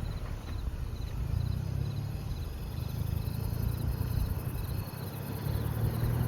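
Crickets chirping in short high triple pulses, repeating about twice a second, over a steady low rumble.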